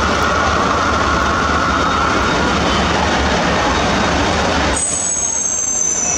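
Truck engine running, with a steady noise. Near the end a high whistling tone starts and falls slightly in pitch.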